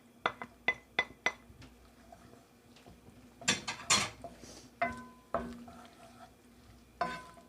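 A metal cooking utensil clinking and tapping against cookware: four quick ringing taps about a second long near the start, a short scrape a little after the middle, and a few more clinks near the end, as garlic goes into the pan.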